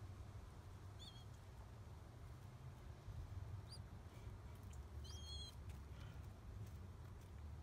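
Newly hatched pigeon squab giving faint, high squeaky peeps as it begs to be fed: one about a second in, another near four seconds, and a short run of several around five seconds. A steady low rumble sits underneath.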